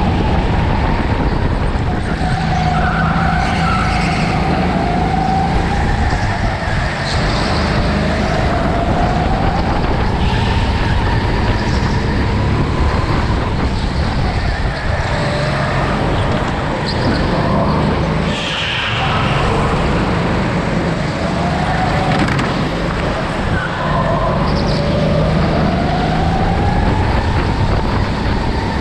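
Onboard sound of a rental go-kart driven at speed: a loud, steady rumble with a whine that rises and falls as it speeds up on the straights and slows for the corners. Short higher squeals come and go, likely the tyres sliding through the turns.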